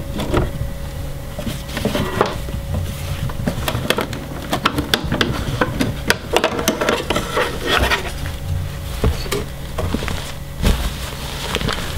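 Embroidery hoop and fabric being handled and taken off a Brother SE600-series embroidery machine: irregular plastic clicks and knocks with fabric rustling, over a faint steady hum.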